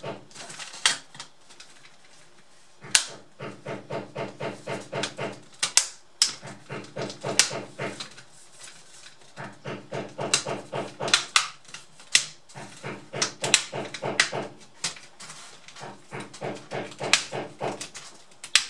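Plastic clips of a Samsung NP550 laptop's case snapping loose as it is pried apart by hand, a dozen or so sharp clicks, the loudest sounds. Behind them, runs of rapid dull knocking at about five a second, stopping and starting every few seconds.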